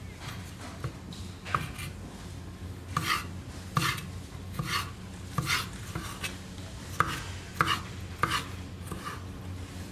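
Kitchen knife slicing a cucumber on a wooden cutting board: about eight separate cuts at uneven intervals, each a short knock of the blade through the cucumber onto the board, over a steady low hum.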